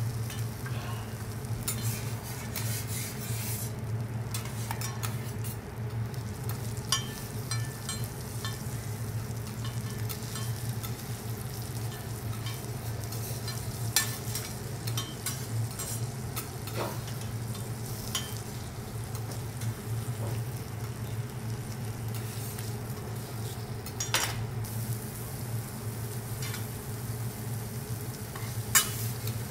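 Food sizzling and frying on a teppanyaki hotplate, with scattered sharp metallic clicks and taps and a steady low hum underneath.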